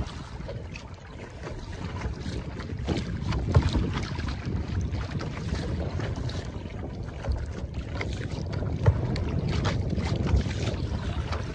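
Kayak being paddled: water splashing and dripping off the paddle blades with each stroke, over a steady low rumble of wind on the microphone. Two sharper hits stand out, about a third of the way in and again about three-quarters through.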